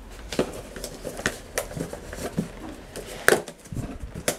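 Hands handling and opening a cardboard shipping box: irregular taps, scrapes and rustles of cardboard, with a louder knock about three seconds in.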